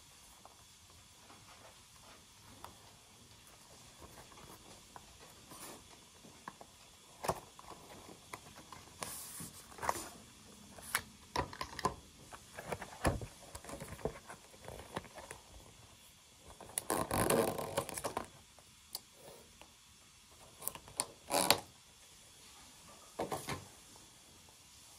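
Watch packaging being handled: paper wrapping and a cardboard box rustling and sliding, with scattered taps and clicks and a few longer rustles, the longest about two-thirds of the way through.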